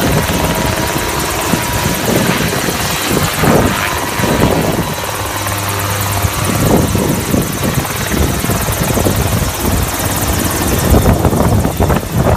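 A small light helicopter running close by, its engine and rotor chopping loudly, rising and falling in strength as it moves.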